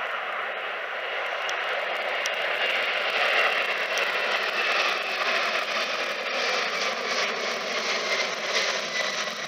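Four turbofan engines of a Boeing 747-400 at take-off thrust as it climbs out, a steady jet roar that is loudest a few seconds in, with a whine that falls slowly in pitch.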